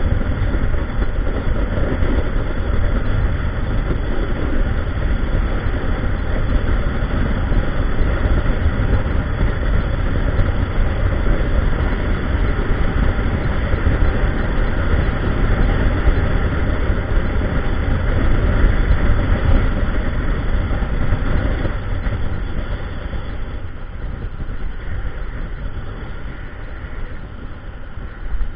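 Wind buffeting the microphone of a bike-mounted camera on a road bike riding at speed, a loud, even rushing noise heaviest in the low range. It eases off over the last several seconds.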